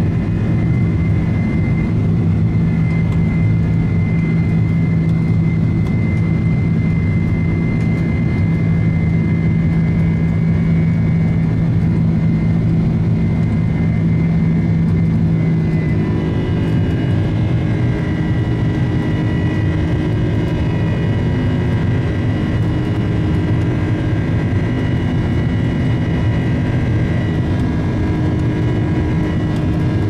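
Jet airliner engine noise heard from inside the passenger cabin: a steady, loud drone with a low hum and a higher whine. About halfway through, the engine tones shift and the low hum drops out, as the engines change power.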